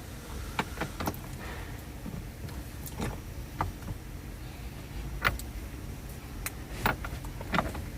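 Irregular sharp metallic clicks and knocks from a hand tool tightening the bolt that holds a steering wheel onto its column.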